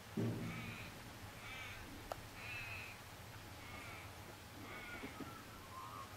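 A bird calling over and over, about one short call a second. A dull thump comes just after the start, and a sharp click about two seconds in.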